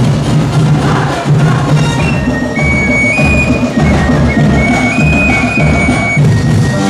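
Performance music led by dense, fast festival drumming. From about two seconds in, a high melody is held on a few notes over the drums.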